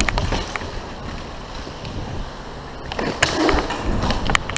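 Inline skate wheels rolling on a plastic sport-court floor, with wind rumble on a helmet camera as the skater moves. Sharp clacks of the hockey stick on the puck and floor come through, several of them about three seconds in and again near the end.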